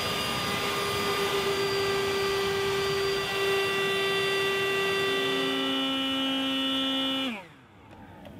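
Battery-powered electric motor running with a steady whine over a rush of hiss, then winding down in pitch and stopping about seven seconds in as its battery goes flat.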